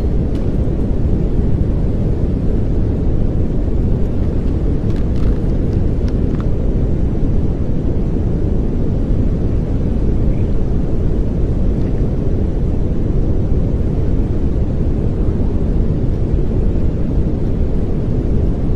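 Steady pink noise, an even hiss weighted toward the low end, unchanging throughout.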